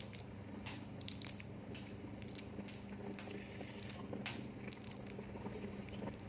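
A person chewing food close to the microphone, with irregular small clicks and crunches.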